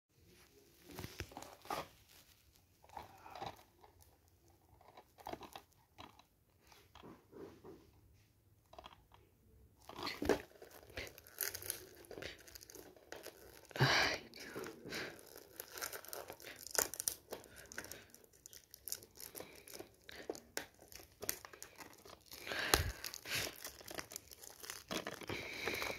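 Plastic shrink wrap being torn and peeled off a DVD case, crinkling and crackling with scattered taps. Sparse at first, it gets louder and busier from about ten seconds in.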